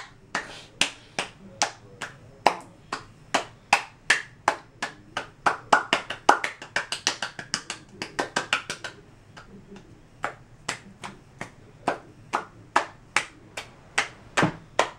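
Hands patting together in a game of patty-cake, a woman's palms against a black-capped capuchin's: a quick run of light slaps, about four a second, lighter for a few seconds in the later part.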